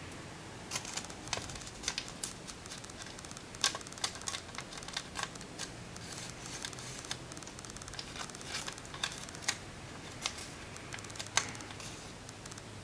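A sheet of origami paper rustling and crackling as it is folded and creased by hand: irregular crisp crinkles and snaps.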